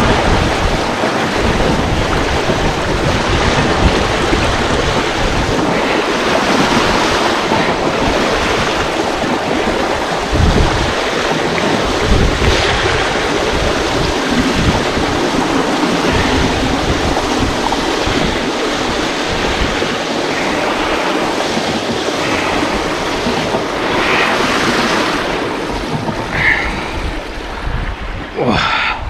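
Water rushing steadily through a sluice gate in a mill race, a loud, even rush of whitewater that eases off a little near the end.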